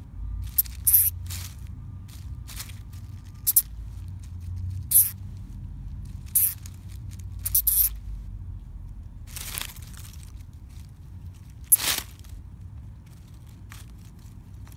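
Dry leaf litter crackling and rustling in short irregular bursts, about a dozen, as an eastern chipmunk forages through it close by, over a steady low rumble.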